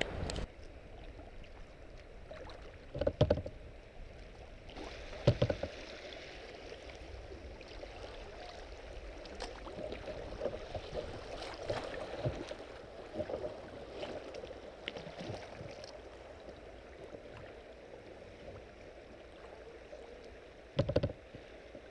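River water running and rippling past a kayak's hull, with a few brief loud splashes close by, about 3 and 5 seconds in and again near the end.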